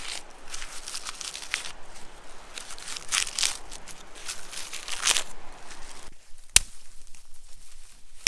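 Dry, papery birch bark being torn and peeled off a trunk by hand, gathered as tinder: a run of crackling and tearing. After a pause there is one sharp snap, like a dry twig breaking.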